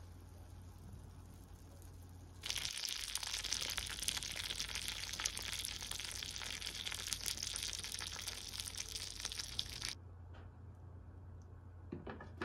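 Fresh spiral börek just out of the oven, its hot butter sizzling with a dense, fine crackle. The crackle starts abruptly about two and a half seconds in and stops abruptly near ten seconds.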